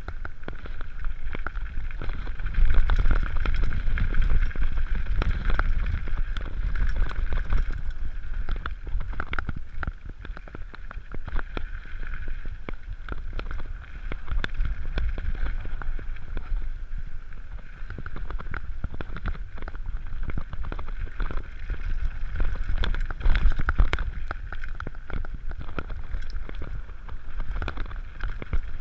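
Mountain bike riding down a gravel trail: rumble of wind on the microphone, tyres on loose gravel, and the bike rattling, with many clicks and knocks over the bumps.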